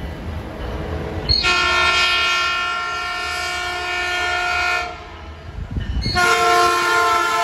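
Multi-chime air horn of a Metrolink MP36 locomotive leading an approaching doubleheader, sounding as a chord. It gives two long blasts: the first starts a little over a second in and lasts about three and a half seconds, and the second starts about six seconds in and is still sounding at the end. A low rumble of the approaching train runs underneath.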